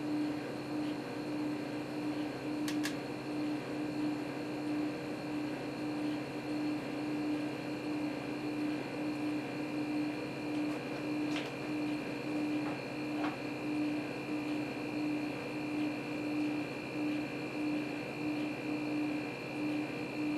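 Small hermetic compressor running steadily, pumping air into a sealed 2-liter plastic pop bottle as the pressure builds. It makes a constant hum with a slight pulse, and there are a couple of faint ticks about 3 and 11 seconds in.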